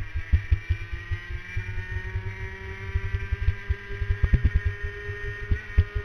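Racing kart's two-stroke engine at high revs, heard from an onboard camera on the kart, its pitch climbing slowly as the kart accelerates and then holding. Many irregular low thumps from buffeting and vibration run under the engine note.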